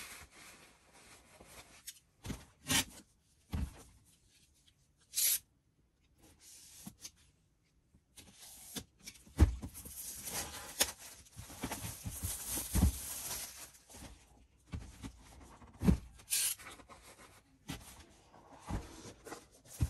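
Clear plastic shrink wrap being torn and crinkled off a Mac mini's cardboard box. Scattered rustles and taps come first, then about four seconds of dense crackling and tearing midway, with a few knocks against the box.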